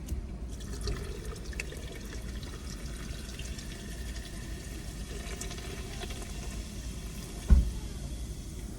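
Liquid pouring into a cup as a drink is refilled, over a low steady rumble, with one sharp thump near the end.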